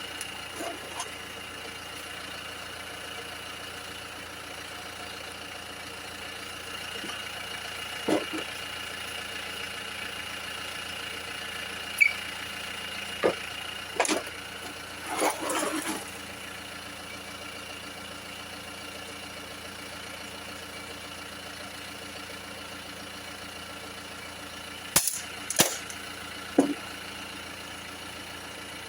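A steady mechanical hum runs throughout, broken by a few sharp metallic clinks and clanks: one about eight seconds in, a cluster around the middle, and three close together near the end.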